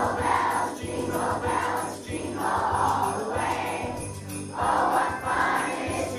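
Jingle bells shaken to a steady beat with music, while a children's choir sings in phrases that swell and break about every second and a half.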